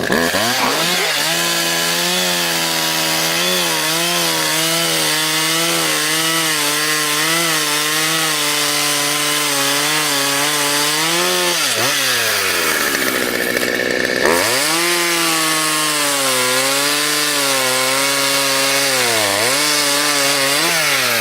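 Two-stroke chainsaw running at full throttle while cutting into a tree, its note wavering as the chain bites. About twelve seconds in the throttle is eased off and the engine drops, then it is revved back up a couple of seconds later to carry on cutting.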